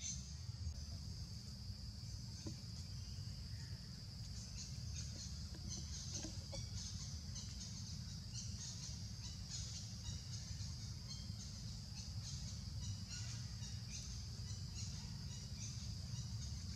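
Outdoor forest ambience: a steady high-pitched drone with many short, scattered chirps or squeaks over it, and a constant low rumble underneath.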